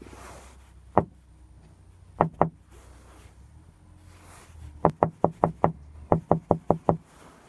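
Knuckles knocking on a hard surface, as if to catch a cat's attention: one knock about a second in, a quick double knock a little after two seconds, then two fast runs of about five knocks each from about five seconds in.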